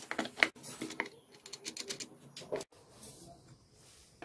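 Scattered light clicks and clacks from a Suzuki Access scooter's clutch assembly as its metal parts are handled and turned by hand, a quick irregular run in the first two and a half seconds.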